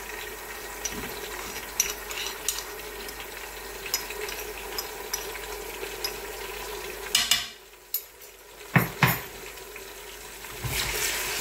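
Onions frying in oil in an aluminium pressure cooker, a steady sizzle, with a steel spoon scraping and clicking against a stone mortar as ginger-garlic paste is scraped into the pan. Two sharp knocks come about two-thirds through, and near the end the sizzle grows louder as the paste lands in the hot oil.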